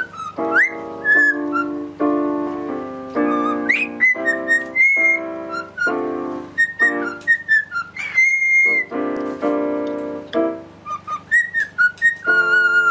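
A cockatiel whistling along to piano chords as they are played. Short clear whistles, several sliding upward, with one longer held note about eight seconds in.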